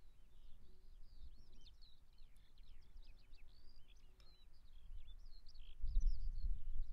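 Small birds singing in a continuous rapid run of high, twisting chirps, over a low rumble that grows louder near the end.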